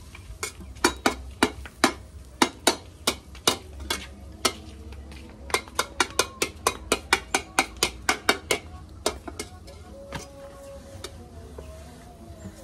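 A metal spatula tapping repeatedly against hard surfaces beside a covered wok: sharp metallic taps, about two a second at first, then a quicker run of taps a few seconds later that thins out near the end, over a low steady rumble.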